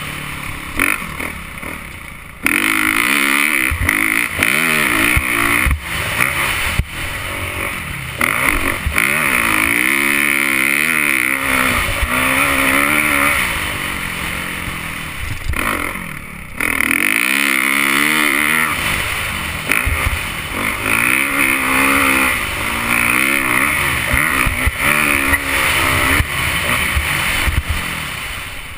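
Motocross bike engine revving hard and backing off again and again, its pitch rising and falling through the lap. It opens up sharply a couple of seconds in and drops away briefly about halfway through.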